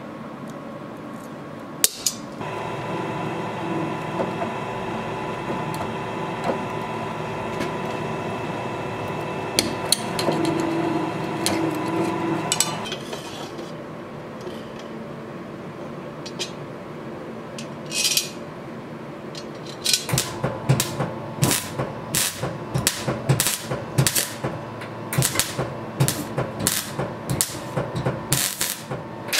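Metalworking on a sword guard: a single sharp knock, then a steady machine hum for about ten seconds, then near the end a quick irregular run of sharp metallic strikes, roughly two a second.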